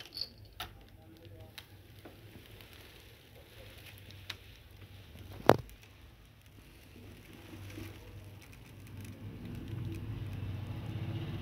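Plastic toy vehicles being moved and bumped by hand: scattered light clicks and rustles, with one sharp knock about halfway through. A low drone builds up near the end.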